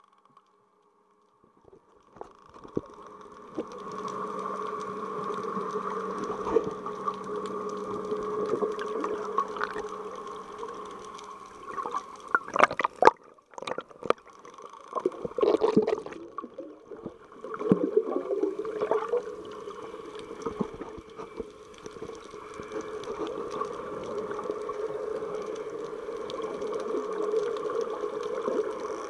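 Underwater sound through a submerged Contour Roam2 action camera: muffled water movement and gurgling with a steady hum. It starts almost silent, with the water sound coming in about two seconds in, and there are several louder bursts of churning water around the middle.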